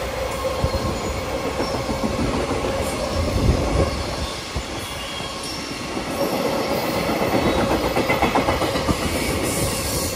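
Loaded JR Freight container flatcars rolling past at speed, their wheels clacking over rail joints in a quick uneven rhythm over a steady rumble, with a thin steady squeal from the wheels. The train's tail goes by near the end.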